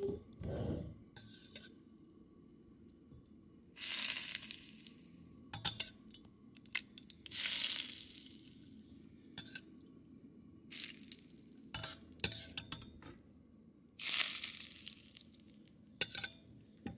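Hot oil ladled onto steamed scallops, tofu and green onion sizzles in four short bursts a few seconds apart. A metal ladle clicks against the wok between the pours.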